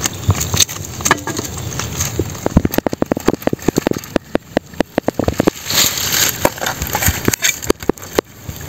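A machete knocking and cracking against the bamboo frame and netting of a crab trap: scattered strokes at first, then a quick run of knocks in the middle.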